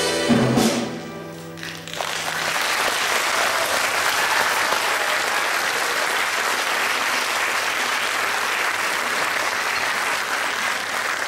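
A gusli ensemble with accordion and drum kit ends a piece on a loud final chord that rings out and dies away; about two seconds in, audience applause begins and carries on steadily.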